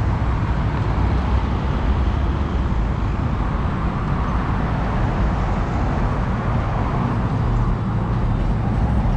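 Steady road traffic noise heard from the roadside while riding along a city street, with a heavy low rumble throughout. Near the end a vehicle's low, steady engine hum joins in.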